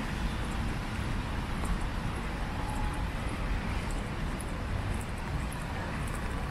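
City street ambience on a wet day: a steady wash of road-traffic noise, with faint, irregular light ticks over it.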